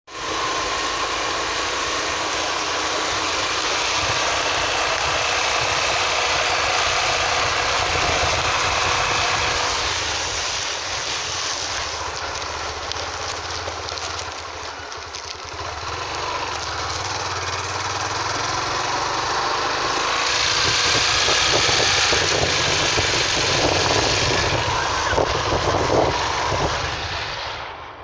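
Wind rushing and buffeting over a phone microphone on a moving motorcycle, with the engine running underneath. It eases a little about halfway, then builds louder again toward the end.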